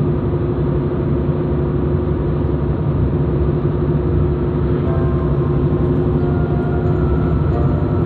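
Steady engine and tyre noise of a car driving at cruising speed on an asphalt road, heard from inside the cabin. It is an even rumble with a constant low hum throughout.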